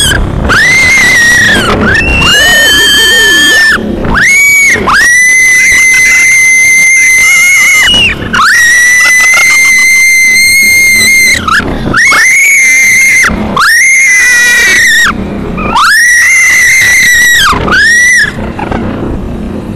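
A rider screaming again and again on a small roller coaster: about eight long, very loud, high-pitched screams, each held for one to three seconds with a rise at the start and a fall at the end, and brief breaths between them. The screaming stops a little before the end.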